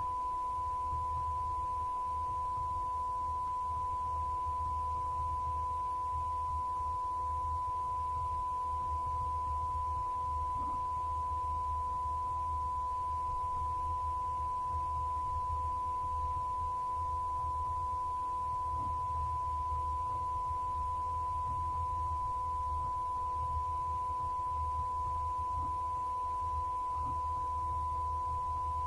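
A single steady electronic test tone at one high pitch, held unbroken, over a faint low hum.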